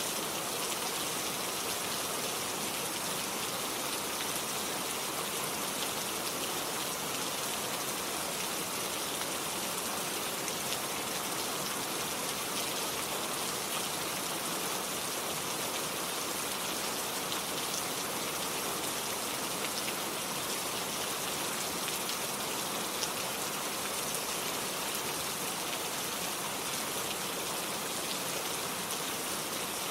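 Steady rain falling, a constant hiss thick with fine drop ticks, holding even throughout.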